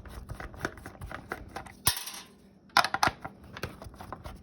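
Small metallic clicks and taps from a screwdriver backing out the Phillips screws that hold a stove's burner heat switch, with a short scrape about two seconds in.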